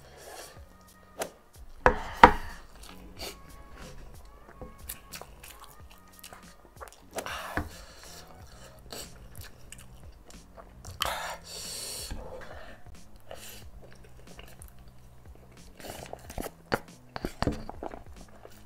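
A person slurping and chewing instant ramen noodles eaten with chopsticks: wet mouth sounds and small clicks throughout, with louder slurps about two seconds in, around seven seconds, and around eleven to twelve seconds. Soft background music underneath.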